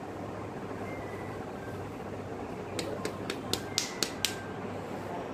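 Fingers tapping the back of a patient's hand to bring up a vein for an IV, about seven quick sharp taps over a second and a half, starting about halfway through, over a steady fan hum.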